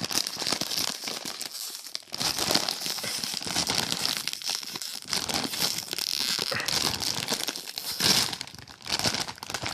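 Foil-lined chip bag crinkling and rustling in irregular bursts as it is handled and pulled open.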